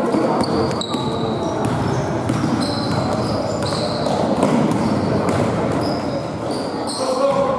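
Basketball game play in a sports hall: a ball bouncing on the court amid many short, high sneaker squeaks, with players' voices in the background.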